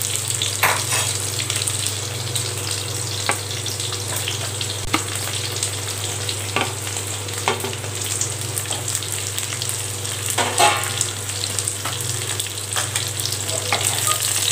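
Garlic, shallots and whole small brinjals sizzling in sesame oil in a non-stick kadai, stirred with a wooden spatula that scrapes and knocks against the pan every second or two, over a steady low hum.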